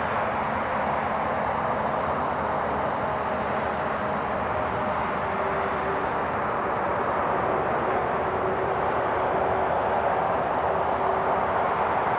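Distant diesel freight train approaching slowly: a steady, even rumble of the locomotive and its wagons heard from far off.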